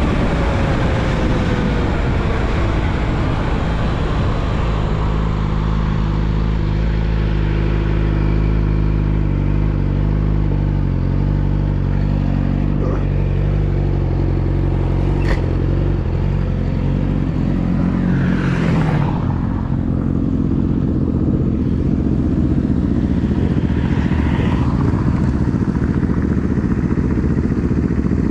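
Yamaha YZF-R6 inline-four through a full aftermarket exhaust system: revs falling at the start, then a long stretch of steady running at low revs, with revs climbing again near the end.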